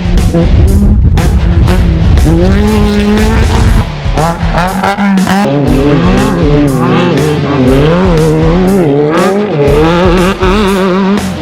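Rock music soundtrack: a wavering, bending lead melody over a steady drum beat.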